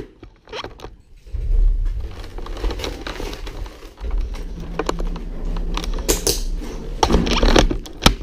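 Rustling and clicking of clothing and gear rubbing against a body-worn action camera, over a low rumble inside an elevator car. The rumble sets in after about a second.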